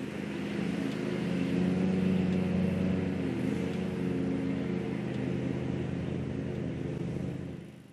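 An engine running steadily, a little louder about two seconds in.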